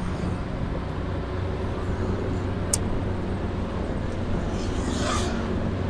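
Motorcycle engine running at a steady cruise with road noise while riding. A single sharp click a little under three seconds in.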